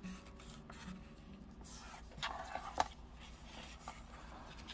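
Quiet rustling and rubbing of paper as a scored sheet is folded by hand into an envelope, with a light tap just past the middle.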